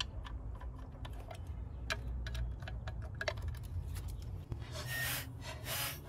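Hand ratchet clicking irregularly as the bolts of a plastic engine cover are loosened. Near the end come a few short rubbing scrapes.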